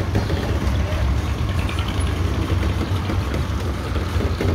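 A 40 hp Yamaha Enduro two-stroke outboard motor running steadily with a low, even rumble.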